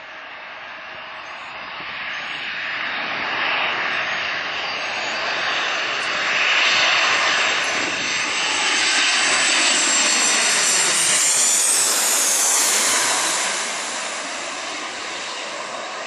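Jet airliner passing low overhead. The engine noise builds over several seconds and peaks with a high whine about twelve seconds in, then the pitch drops and the sound fades as the plane moves away.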